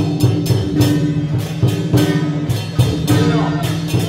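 Temple procession music: drums and cymbals beating a steady rhythm of about three crashes a second over held low notes.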